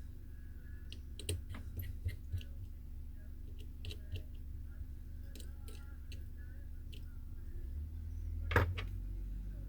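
Light, irregular clicks and taps of small tools and parts against an iPhone X's internals as it is taken apart, with one louder click near the end, over a steady low hum.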